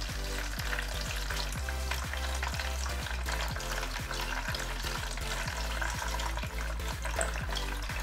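Water poured from a plastic jug onto bulgur wheat in a mesh sieve, a steady splashing hiss as it soaks through into the basin below, to hydrate the wheat for kibbeh. A steady low beat of background music runs under it.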